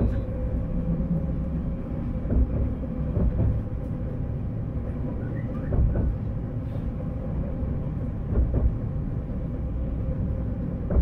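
Alstom Citadis tram running on the Paris T3a line, heard on board: a steady low rumble from the wheels and running gear under a steady electric hum, with a few short knocks from the track.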